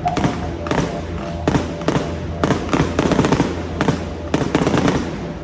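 Aerial fireworks bursting in a rapid series of about a dozen sharp bangs, some coming in quick clusters.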